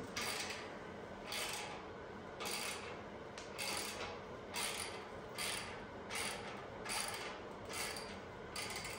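Hand ratchet wrench working a bolt loose, clicking through about ten even back-and-forth strokes, roughly one a second: the bolt on the exhaust clamp at the header being backed off.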